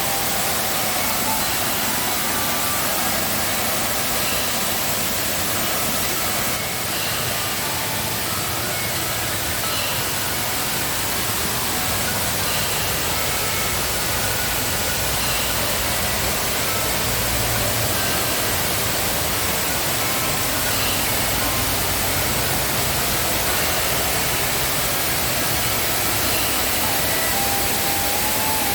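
Waterfall in rainy-season flood: a steady, loud rush of falling water.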